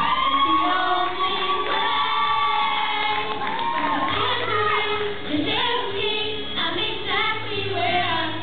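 Girls singing together into handheld microphones, amplified through the hall's PA, holding one long note over the first couple of seconds.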